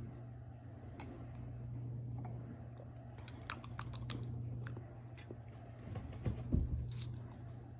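Faint wet chewing and small mouth clicks from chewing the soft tapioca pearls of a canned soybean boba drink, denser near the end, over a steady low hum.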